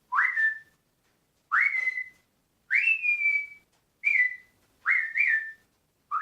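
Five short, shrill whistle blasts, each sliding quickly up in pitch and then held briefly; the last one rises twice.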